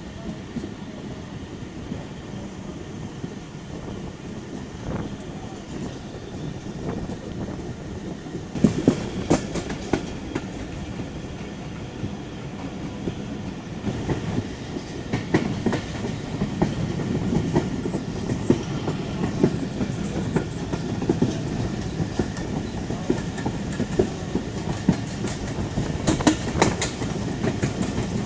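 Jaffar Express passenger train running along the track, heard from an open coach doorway: a steady rumble with wheels clacking over rail joints. It grows louder about nine seconds in, with sharper clacks from then on.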